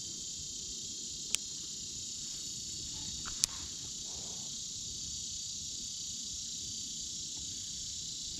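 Steady, high-pitched chorus of insects, with two sharp clicks, the first about a second and a half in and the second about three and a half seconds in.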